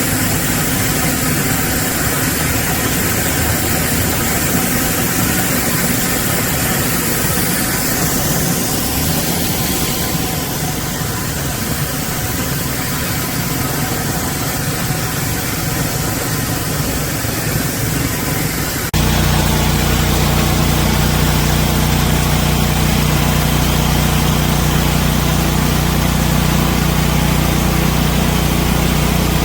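A pressure washer's motor running steadily with a hiss of spray. About two-thirds of the way through it cuts abruptly to a louder, steadier run with a deep, even hum.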